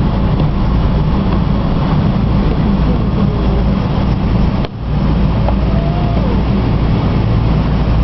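Steady cabin noise of a Boeing 777-300ER's GE90 engines, heard from inside the cabin while the airliner taxis. The sound briefly drops out a little past halfway.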